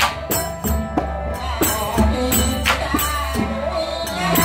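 Live Surin folk music for the Rueam Anre dance: a two-string fiddle playing sustained notes over a steady percussion beat of about three strokes a second.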